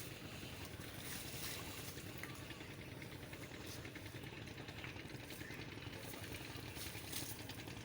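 Small boat engine running steadily with a rapid, even chugging.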